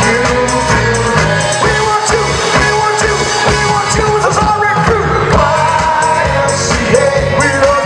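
Live funk band playing: a bass guitar line, electric guitar, keyboards and drums, with a lead vocalist singing over it.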